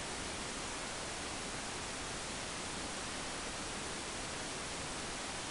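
Steady, even hiss of static, unchanging in level, with no other sound standing out.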